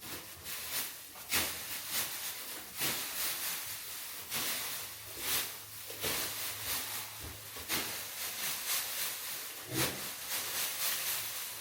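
Bedding being forked and kicked about on a stable floor: irregular dry rustling swishes, one after another.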